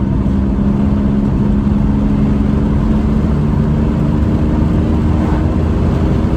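1997 Chevrolet Camaro's 3.8-litre V6 engine pulling under acceleration, heard from inside the cabin, with a brief stumble the owner calls a little hiccup. The stumble is the intermittent hesitation he puts down to a failing mass airflow sensor (code P0102).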